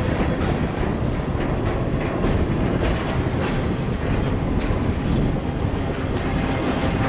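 Double-stack intermodal freight train passing close by: a steady rumble of steel wheels on rail, with irregular clicks and clanks.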